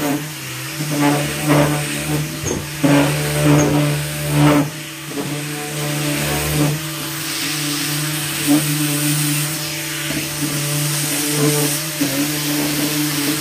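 SurfPrep 3x4 electric Ray sander with a foam pad running with a steady motor hum while it breaks the edges of a wooden cabinet door, swelling louder over the first few seconds as the pad is pushed along the edges.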